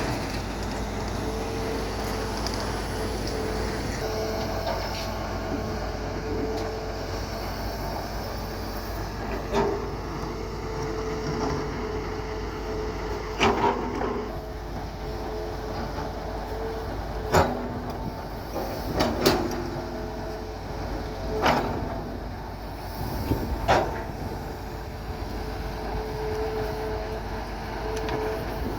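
Hitachi Zaxis 210 hydraulic excavator digging soil: its diesel engine runs steadily, with a tone that comes and goes as the hydraulics work, and about half a dozen sharp clanks in the middle stretch.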